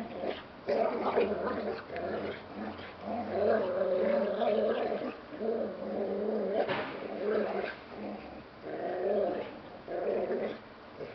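Dogs growling in rough play while wrestling and tugging a toy. The growls come in a string, each lasting a second or two with short breaks between them.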